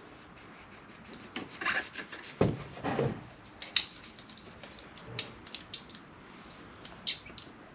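Hands fitting a small rubber hose and its hose clamp in a car's engine bay: irregular light clicks and rubbing of rubber, metal and a small hand tool.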